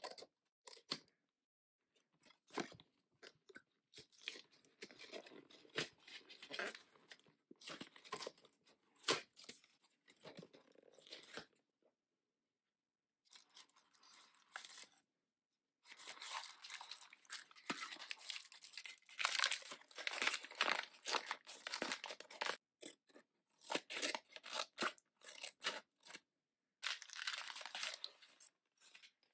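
Close-up unboxing noises: scissors cutting the wrapping of a small cardboard toy box, then the cardboard and plastic packaging crunching and rustling as the box is opened and a foil blind bag is pulled out. The sound comes in irregular bursts with short pauses.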